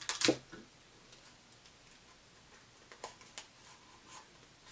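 Clear sticky tape pulled from a desk dispenser and torn off on its teeth, a short sharp rip at the start. After it come a few faint ticks and rustles as paper is pressed onto a cardboard tube.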